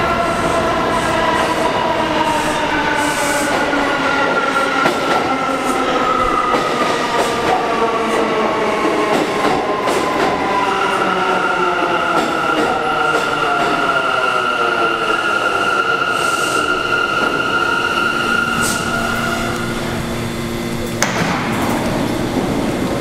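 R179 subway train pulling into an underground station: its electric propulsion whine falls steadily in pitch as it slows, joined about ten seconds in by a steady high squeal that lasts until the train stops near twenty seconds. A sharp clack follows about a second later.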